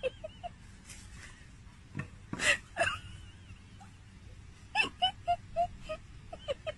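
Small spaniel-type dog barking at a statue in short, sharp yaps: a few about two seconds in and another cluster near five seconds, with small yips between.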